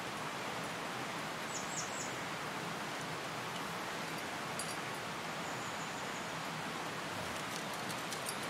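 Steady outdoor background hiss, with a few faint, short, high bird chirps about one and a half to two seconds in.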